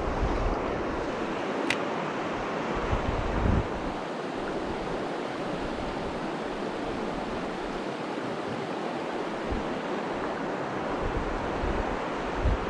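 Steady rush of a fast, high-running mountain river, with wind now and then thumping on the microphone.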